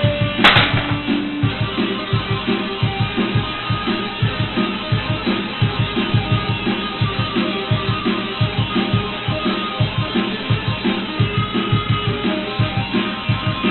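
Guitar played with a fast, steady run of repeated picked notes low on the neck. There is a sharp click about half a second in.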